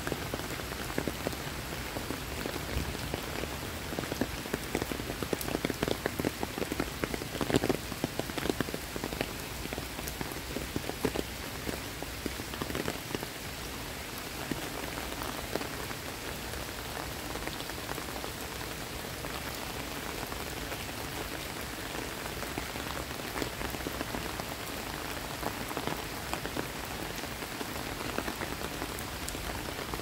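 Steady tropical rain falling on foliage and wet brick paving, a dense patter of drops, with louder, closer drop hits between about four and twelve seconds in.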